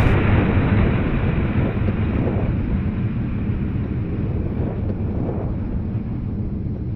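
Deep rumbling roar of a missile launch, slowly dying away as the missile flies off.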